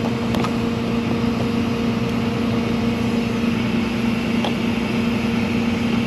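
An engine idling steadily with a constant hum, and a couple of faint clicks.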